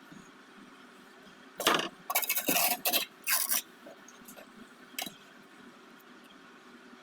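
Several short scraping strokes from masonry work, a tool rubbing on brick and mortar: a cluster in the second and third seconds, one more about five seconds in.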